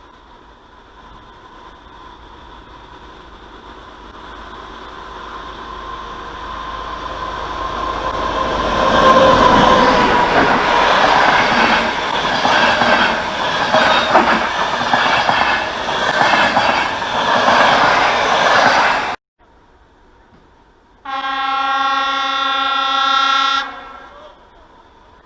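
A train approaching and passing close: its noise builds over about nine seconds into a loud clatter of wheels on rails, then cuts off abruptly. After a short pause comes a single steady train horn blast of about two and a half seconds.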